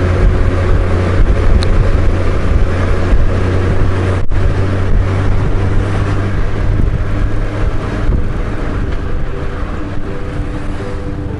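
Honda GL1500 Gold Wing motorcycle riding at road speed: steady engine drone mixed with rushing wind on the microphone. The sound cuts out for an instant about four seconds in.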